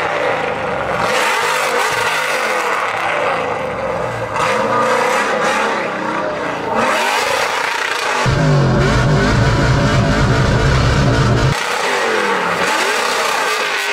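LS V8-swapped Nissan 350Z drift car revving hard through a drift, its engine note rising and falling again and again as the revs bounce. A louder, deeper stretch of engine sound comes in abruptly about eight seconds in and drops out again about three seconds later.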